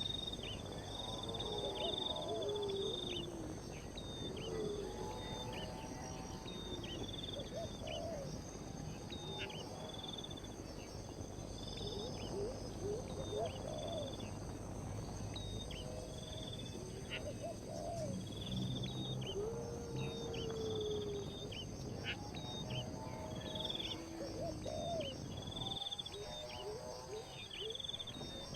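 Steady high insect drone with animal calls over it: a high note repeating about once a second, and lower, sliding calls every few seconds.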